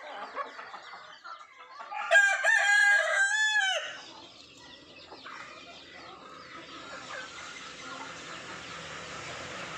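A rooster crows once, loudly, starting about two seconds in and lasting about two seconds, amid hens clucking as the flock feeds.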